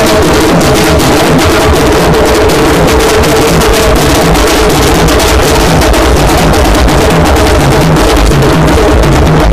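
Very loud music with a fast, heavy drum beat, a repeating bass line and a held tone underneath, playing without a break.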